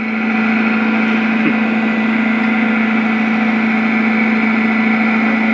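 Diesel engine of a Komatsu PC128US crawler excavator running steadily at a constant pitch.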